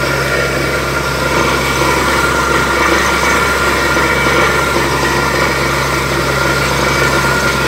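Truck-mounted borewell drilling rig running steadily, its engine and air compressor driving the drill, with a heavy gush of water and rock slurry blowing up out of the bore around the drill pipe. The water is a strike, found while drilling the bore.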